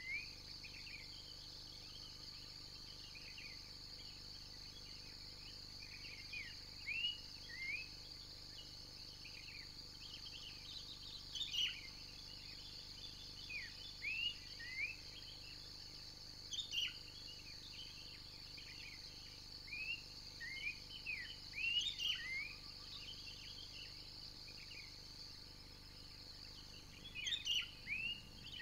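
Steady high-pitched insect drone, with birds calling in short sweeping chirps that come in clusters every few seconds.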